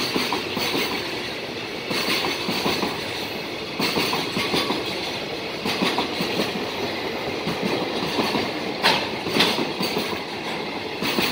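Container flat wagons of a freight train rolling past, wheels clacking over the rail joints in clusters about every two seconds above a steady rolling rumble.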